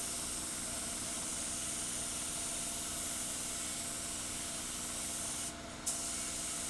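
Compressed-air spray gun hissing steadily as it sprays primer, stopping briefly about five and a half seconds in and then starting again.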